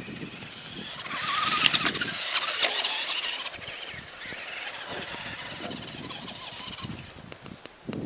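Traxxas Rustler RC truck's brushed electric motor whining under throttle as the truck drives over snow. The whine rises and is loudest from about one to three and a half seconds in, then settles to a quieter steady whine.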